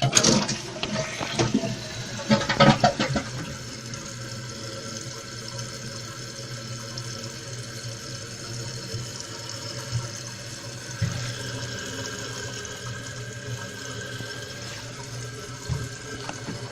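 2013 Kohler Highline toilet flushing: a loud rush of water for the first three seconds or so, then the steady hiss of the tank refilling through its fill valve.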